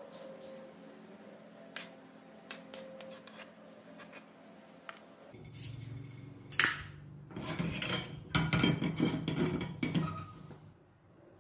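Light clicks and scrapes of chopped vegetables being swept off a plastic cutting board. Then metal pans clatter on a gas stove's iron grate: a sharp knock about six and a half seconds in, then a run of clanking from about seven and a half to ten seconds in as an aluminium wok is set down on the burner.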